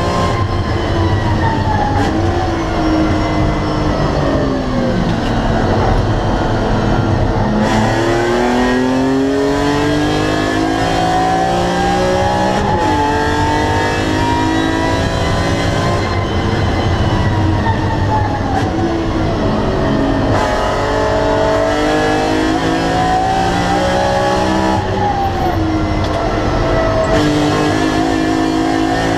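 In-cabin sound of a BMW E46 M3 CSL's 3.2-litre straight-six breathing through its carbon intake airbox, driven hard. The revs climb and fall again and again as it accelerates through the gears and slows for corners, with a sharp drop in pitch on an upshift about halfway through.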